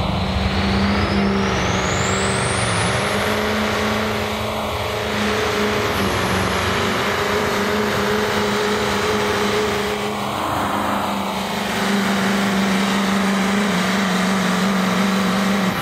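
Mack semi-tractor's diesel engine working hard under load as it pulls a weight sled: a steady, deep engine note with a high whine that rises over the first few seconds.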